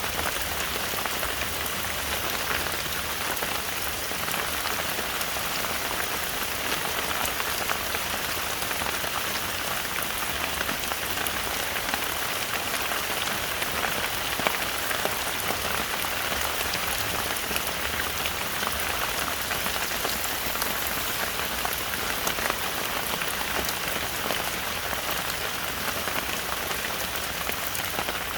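Heavy rain falling steadily, a dense hiss of drops pattering on leaves and surfaces.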